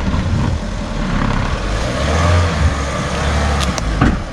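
Off-road vehicle's engine running under load as it is driven over rocks, a steady low rumble, with a few sharp knocks near the end.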